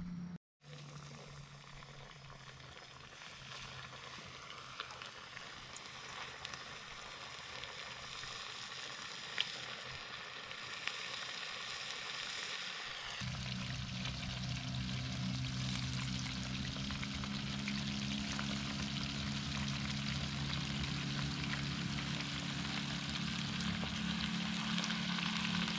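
Fish pieces frying in hot oil in pans on portable gas stoves, a steady crackling sizzle that grows louder about halfway through, with a low steady hum beneath it from then on.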